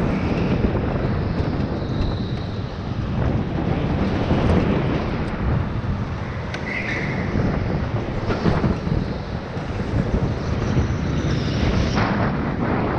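Onboard noise of a go-kart driving fast around an indoor track: the kart's steady running noise with wind buffeting the microphone.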